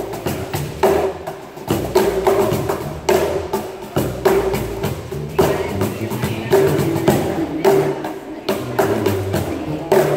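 BangBox cajons played by hand in a busy rhythm of sharp slaps and deeper strokes, with an electric bass guitar playing a line underneath.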